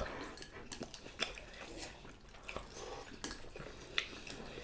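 Eating sounds: chewing and wet mouth noises, with a few light clicks of chopsticks against bowls.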